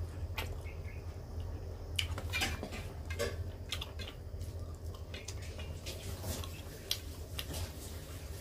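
Fingers mixing rice and curry on a stainless steel plate: irregular small clicks and scrapes of hand and food against the steel, over a steady low hum.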